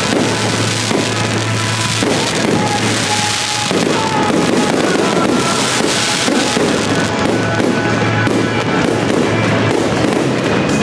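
Aerial fireworks bursting in quick succession, with dense popping that turns into sharp crackling over the last few seconds, while music plays at the same time.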